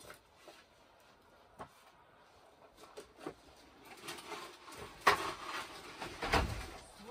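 A hinged wooden pallet-collar board with metal corner hinges being lifted and handled: a few light knocks, then a scraping, rustling stretch with a sharp knock about five seconds in and another just after six seconds.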